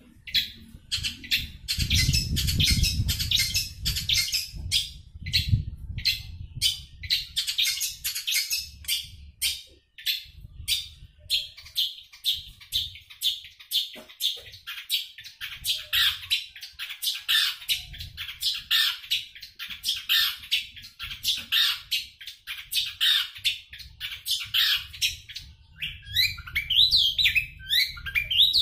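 Caged long-tailed shrike (cendet) in full song: a long, fast, unbroken run of short harsh notes, several a second, turning near the end into quicker sliding whistled notes.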